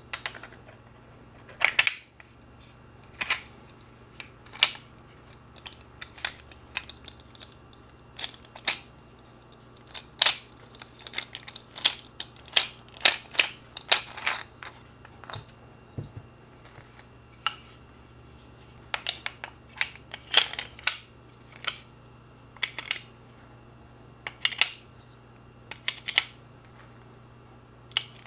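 Brass .45 ACP cartridges and a white plastic BMT Mooner moon-clip loader clicking and clattering as rounds are handled and set into the loader. The clicks are sharp and irregular, coming singly every second or two and in quick runs of several.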